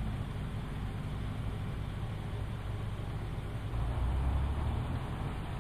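Fire engine idling with a steady low engine hum, which swells louder for about a second around the middle.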